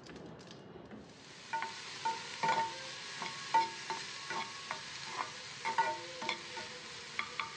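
Chopped onions, green chillies and curry leaves frying in a small metal pan on a gas stove: a steady sizzle begins about a second in. A metal spatula scrapes and taps the pan every second or so, and each stroke makes the pan ring briefly.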